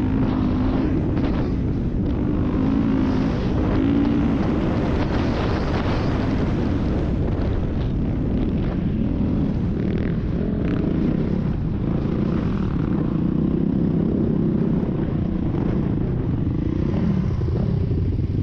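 Dirt bike engine running under way, its pitch rising and falling with the throttle, over a heavy low rumble of wind on a helmet-mounted camera's microphone.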